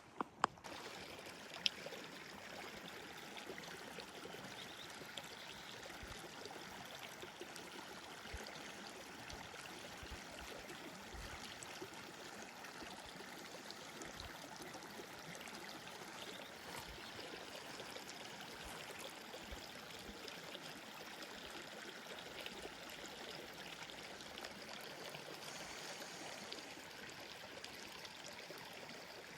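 Small mountain creek flowing steadily, an even rush of running water. A couple of sharp clicks come in the first two seconds, and short low bumps come and go.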